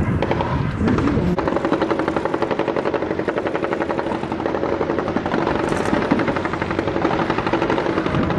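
Rapid automatic gunfire from several armoured vehicles' mounted machine guns on a live-fire range. It sets in about a second in and runs on without a break as a fast, even rattle of shots, with vehicle engines running underneath.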